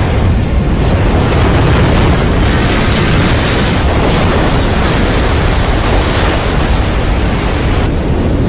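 Disaster-film sound effects: a loud, steady, deep rumbling roar of surging water and destruction.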